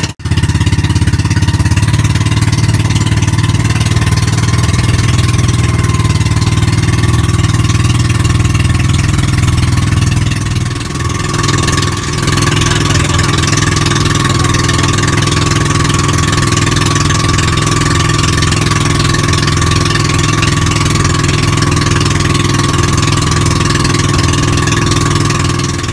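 Small pumpboat engine running steadily under way, a loud even drone with a brief dip about eleven seconds in.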